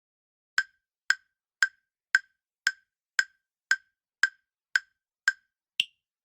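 Countdown-timer ticking sound effect: eleven short, evenly spaced ticks, about two a second, the last one higher-pitched.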